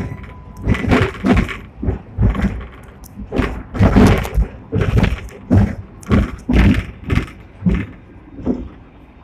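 Sixth-generation Hong Kong double-deck tram clattering and knocking as it runs along the rails, with irregular sharp knocks and thuds about twice a second over a low running rumble; the knocks stop shortly before the end.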